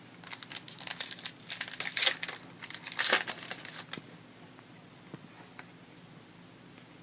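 Wrapper of a trading-card pack crinkling as it is torn open and crumpled, for about four seconds, loudest about three seconds in; after that only a few faint taps.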